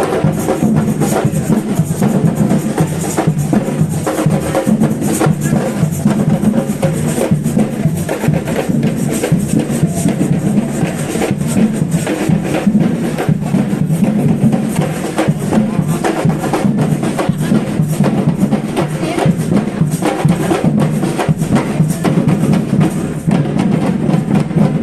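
Live percussion music: drums played in a steady, dense rhythm with woodblock-like clicks over it.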